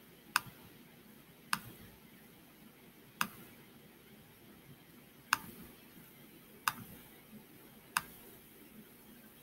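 Computer mouse button clicking six times, single sharp clicks one to two seconds apart.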